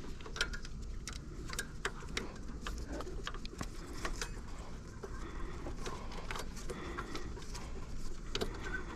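Scattered small metallic clicks and ticks of a hand tool and screw as a brake caliper mounting screw is started by hand.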